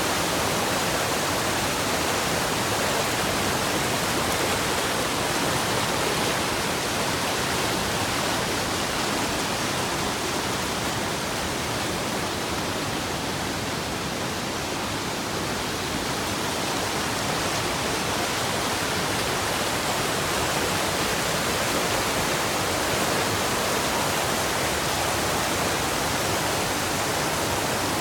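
Waterfall rushing steadily: a dense, even wash of falling water, dipping slightly about halfway through.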